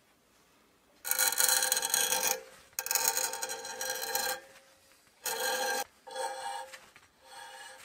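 A thread tap being turned into the bore of a brass air-hose coupling plug held in a vise, cutting threads: rasping, squeaky scraping in strokes, two long ones followed by several shorter ones.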